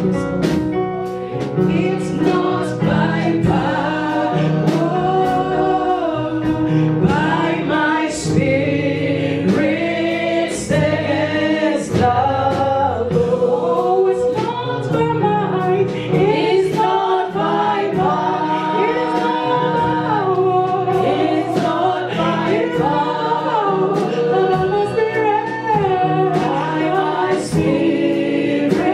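Gospel worship song: several voices singing together over sustained keyboard and bass chords, with a steady drum beat.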